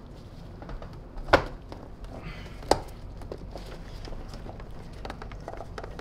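Plastic housing of a Beam Serenity power brush nozzle being pressed back together by hand: two sharp clicks about a second and a half apart, with lighter handling taps around them.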